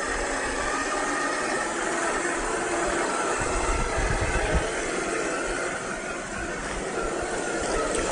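A 1/10-scale RC rock crawler's 550 brushed motor and steel gears whining as it crawls, over a steady rush of creek water. There are a few low thumps about halfway through.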